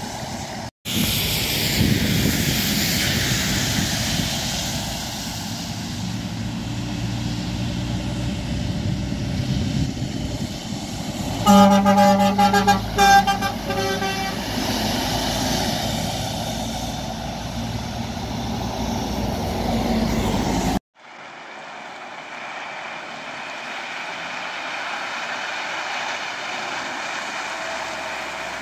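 A passing truck's horn sounding a few short blasts, over the steady engine and tyre noise of heavy trucks going by.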